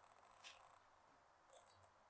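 Near silence, with faint high-pitched chirps: one run of chirps lasting until just under a second in, and a shorter one about a second and a half in.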